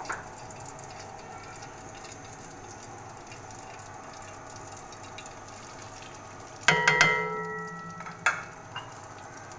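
Hot ghee sizzling faintly and steadily in a wok. About seven seconds in, semolina is tipped into the pan with a sharp metal clank that rings for about a second, followed by a second knock and a smaller tap.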